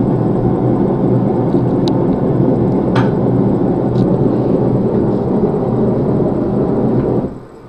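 Forge blower running steadily, with a few faint clicks over it, then cut off suddenly near the end.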